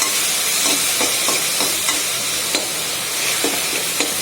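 Tomatoes frying in hot oil in a kadai with onion and garlic, sizzling steadily while a spoon scrapes the pan in short, repeated stirring strokes.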